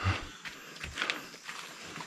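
Footsteps crunching and rustling over ground and undergrowth: a few short, irregular steps.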